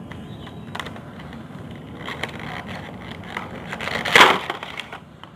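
Toy packaging being handled: cardboard and plastic rustling and crinkling with scattered clicks, and a loud crinkling rustle about four seconds in.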